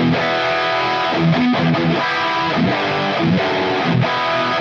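Distorted electric guitar played through a Line 6 Helix amp model into a modelled 4x12 Cali V30 cab, the 57 mic set at 45 degrees off axis to smooth a very bright amp. A run of sustained notes, steady and loud, that stops abruptly at the very end.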